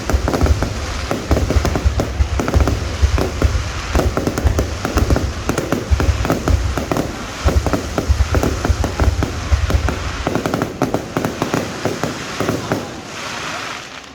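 Fireworks going off in a rapid, continuous barrage of bangs and crackles over a deep rumble. The rumble dies away about eleven seconds in, leaving thinner crackling and a hiss near the end.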